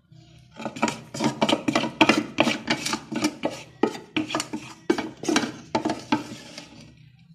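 Wooden ladle scraping and knocking inside a stainless steel bowl, scooping out steamed corn couscous in quick strokes, about three a second, that stop shortly before the end.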